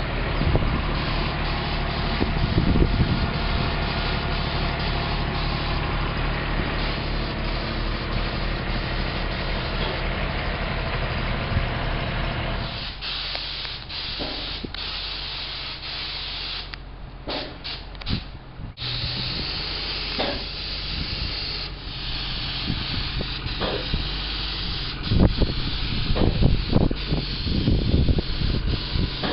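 Paint spray gun hissing as it sprays a coat of paint, over a motor's steady low hum. About 13 seconds in the hum falls away and the sound cuts out briefly a few times. Near the end comes a run of knocks.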